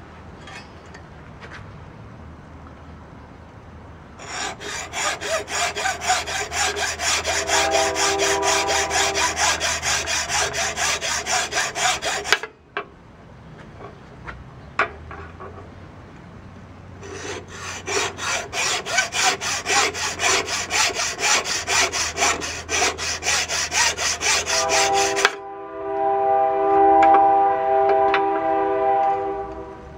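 Hand hacksaw cutting through a yellow wonderstone pipe blank in rapid back-and-forth strokes, in two runs with a pause of a few seconds between them. In stretches the blade rings with a pitched squeal over the rasp of the strokes, loudest near the end.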